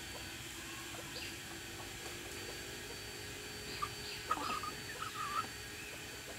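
Roosters giving a quick run of short, clucking alarm calls about four seconds in, over a steady background hiss.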